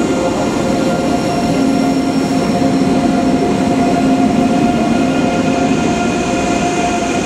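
ICE high-speed electric train rolling slowly along the platform as it pulls in and stops, with a steady whine of several held tones over the rumble of the running gear.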